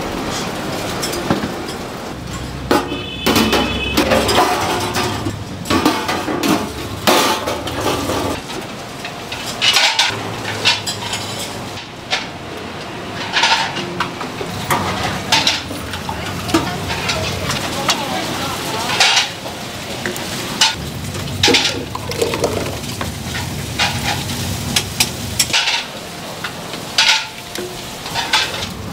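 Cooking at a street-food steak stall: metal utensils and pans clank irregularly over a steady sizzle of frying.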